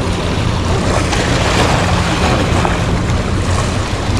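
Steady rush of wind and water, with a low steady hum underneath.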